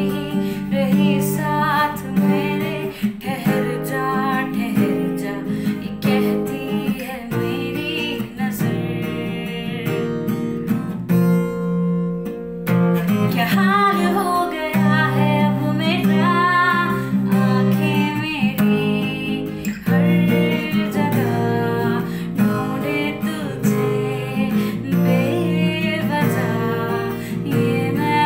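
A woman singing while strumming chords on an acoustic guitar, with a short break in the singing about midway while the guitar carries on.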